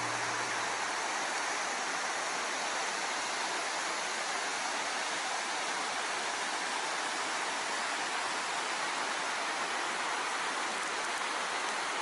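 Steady rush of a river pouring over rocky rapids, an even, unbroken white-water sound.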